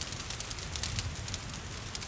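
Wood fire crackling in a fireplace, with many quick irregular pops, over a steady hiss of rain.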